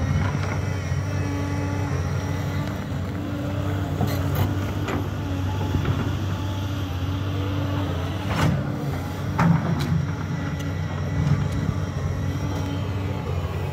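Doosan DX225 crawler excavator's diesel engine running steadily under load while it digs, with several sharp knocks and clatters of the steel bucket striking rock and soil, the loudest about eight and a half seconds in.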